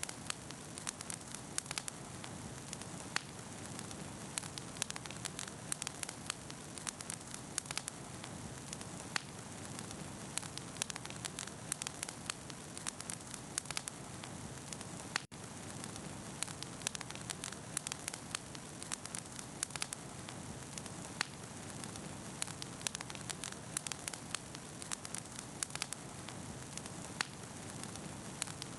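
Wood bonfire burning, with frequent sharp crackles and pops over a steady hiss. The sound drops out for an instant about halfway through.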